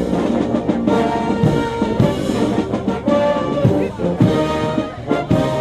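Marching brass band playing, with tubas and horns over a steady beat.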